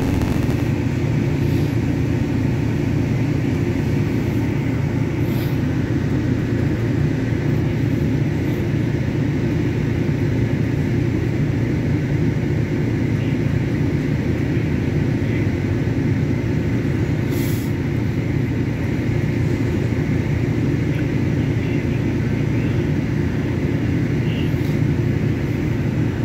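Steady low hum and rumble inside a CTrain light-rail car at a station platform.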